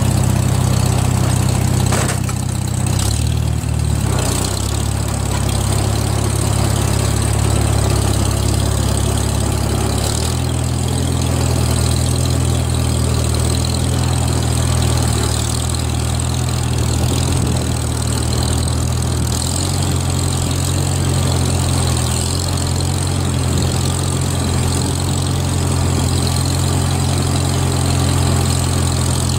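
1947 Farmall H tractor's four-cylinder engine running steadily under load as the tractor crawls through deep mud carrying a round hay bale on its front loader. The engine note shifts several times, with a short knock about two seconds in.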